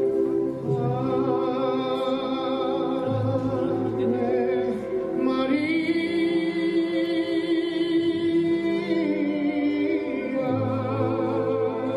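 Music: a singing voice in a classical, operatic style holding long notes with vibrato over sustained instrumental accompaniment, with one note held for several seconds midway.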